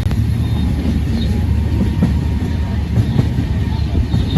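Passenger train running on the rails, heard from inside a carriage: a steady low rumble with a few sharp clicks from the wheels and track.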